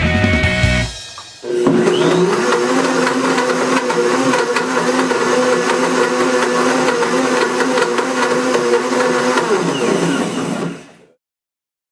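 Industrial countertop blender motor running at full speed, its blades churning water and a red toy ball in the jar, with a steady hum and a churning wash over it. It starts about a second and a half in and stops just before the end.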